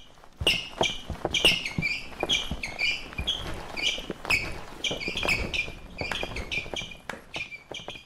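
Show choir performing a sports-themed number: a rapid run of short, high shouts, two to three a second, mixed with sharp claps and stomps.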